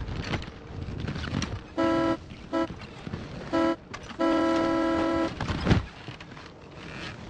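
Car horn honking four times: three short toots, then one held for about a second. A sharp thump follows near the end.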